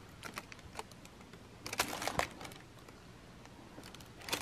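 Handling noise from a leather sandal being turned over in the fingers: faint rustling and small scattered clicks, with a short cluster of sharper clicks and scrapes about two seconds in.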